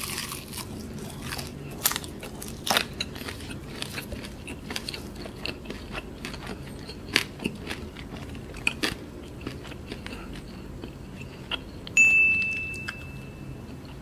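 Close-up eating sounds of a fried chicken drumstick being bitten and chewed: scattered crisp crunches of the breaded coating and wet chewing. Near the end a single high ringing tone sounds and fades.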